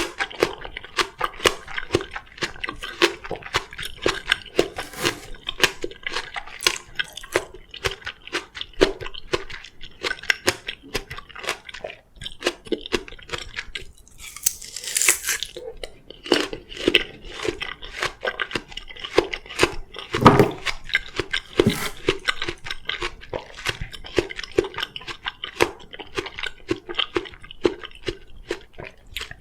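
Close-miked crunching and chewing of crisp Korean oriental melon (chamoe), with many quick, irregular wet crunches. A brief hiss about halfway through, and one louder crunch a little later.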